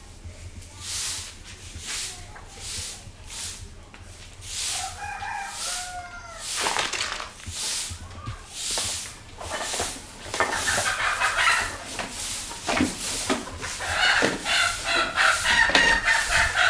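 A broom sweeping a yard in steady, regular swishes, about one stroke a second. A rooster crows once about five seconds in, and chickens cluck busily near the end.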